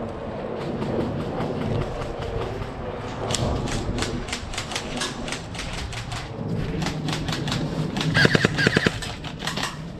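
Airsoft guns firing: sharp scattered shots, then a rapid full-auto burst about eight seconds in, the loudest part.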